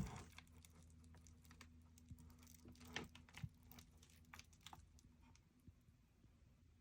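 Faint, scattered light clicks and taps of hands handling keyboard packaging, over a low faint hum that fades out about five seconds in.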